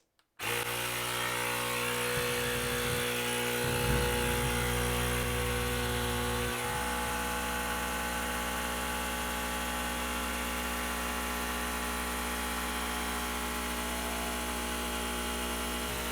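Parkside PAKT 20-Li A1 20V cordless compressor starting about half a second in and running steadily as it inflates a large inflatable water ring.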